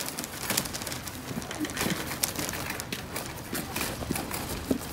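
Shopping cart with a plastic basket rattling and clicking irregularly as it is pushed over paving tiles, over a noisy outdoor background.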